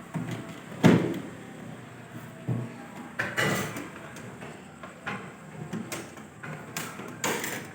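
Intermittent knocks and handling noises, the loudest a sharp knock about a second in, with shorter knocks and scrapes around the middle and near the end.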